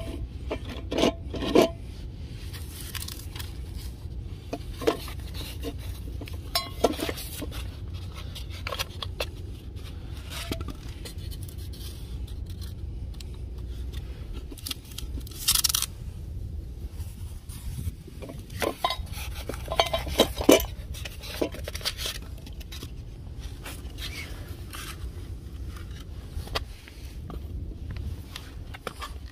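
Stainless steel bowls clinking and scraping against each other and a wooden feeding stand as they are handled. The knocks come in scattered clusters, with one longer rattling burst about halfway through.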